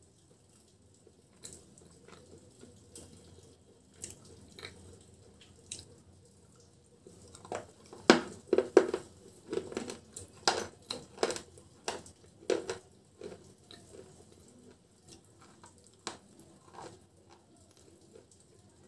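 Close-miked crunching and chewing of dry white chips, with a run of sharp, loud crunches from about eight to thirteen seconds in and scattered soft clicks before and after.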